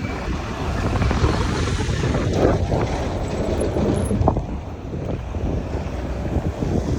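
Wind buffeting the microphone over a low rumble. The rumble swells about a second in and eases off after about five seconds.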